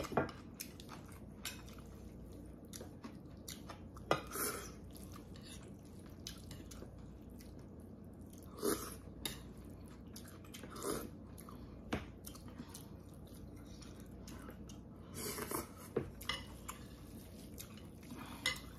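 Eating Korean thin noodles in anchovy broth: a few short slurps and chewing, with chopsticks and a metal spoon clicking against the bowl now and then.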